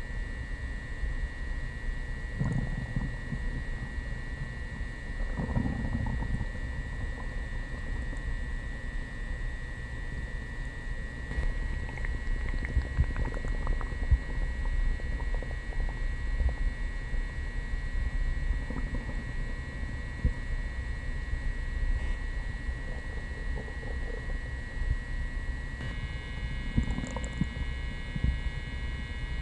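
Upset human stomach and intestines gurgling and churning after coffee and prune juice: a low steady rumble with a few louder gurgles, about four of them spread through. Heard from just in front of the belly rather than with the microphone pressed to it.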